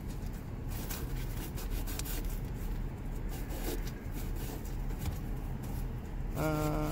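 Hand rubbing strokes on a hard plastic e-brake handle, most likely sandpaper working down the built-up super glue repair, with a few light clicks. A short hum from a man near the end.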